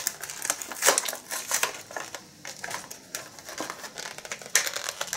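Clear plastic blister packaging crinkling and crackling in irregular bursts as it is pried open and pulled from its card backing by hand.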